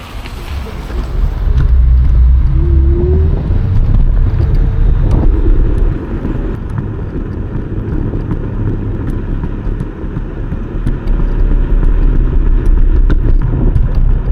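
Loud wind buffeting on the microphone with road and tire noise while an iENYRID M4 electric scooter is ridden on newly fitted low-noise street tires. A brief rising whine comes about two to three seconds in.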